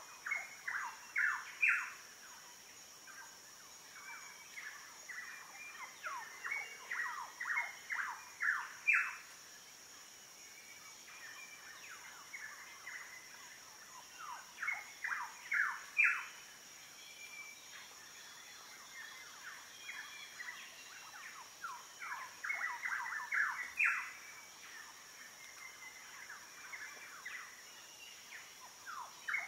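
A songbird repeating a phrase of quick notes, each falling in pitch, the notes growing louder toward the end of each phrase, about every seven seconds, over a steady high-pitched insect drone.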